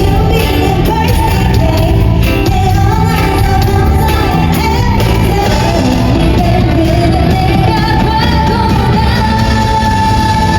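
Loud live K-pop performance: female voices singing over a heavy pop backing track, with a long held sung note near the end.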